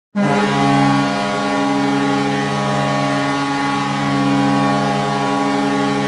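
Vancouver Canucks' arena goal horn sounding one long, steady blast, a deep chord of several tones that starts just after the beginning, signalling a goal.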